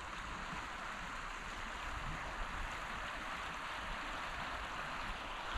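Steady even hiss with a low rumble underneath, unchanging, with no distinct events.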